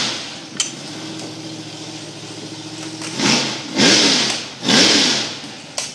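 A drag-racing car's engine idling with a steady hum, then revved in three short blips a little over half a second apart.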